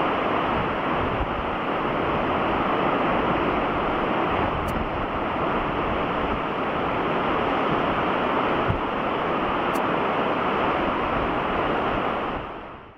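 Steady rush of ocean surf and wind on the microphone, fading out near the end.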